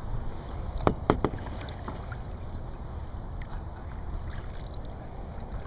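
Kayak out on the water: a steady low rumble of water and air noise, with three sharp knocks close together about a second in.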